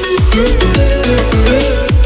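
Background electronic music with a steady beat and deep, falling kick-drum hits.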